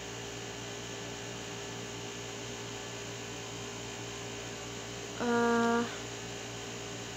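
Steady low electrical hum with faint hiss. A little after five seconds in, a single short buzzing tone at one steady pitch lasts under a second.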